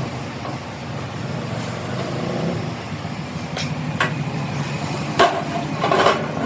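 A motor vehicle engine running steadily, with a few sharp knocks in the second half.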